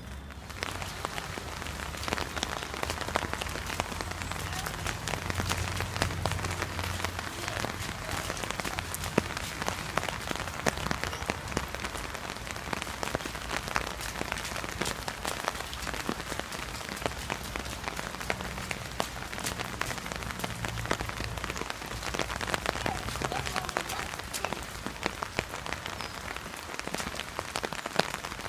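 Steady rain pattering on wet paving and puddles: a dense, even patter of drops. A low steady hum sits underneath and fades out near the end.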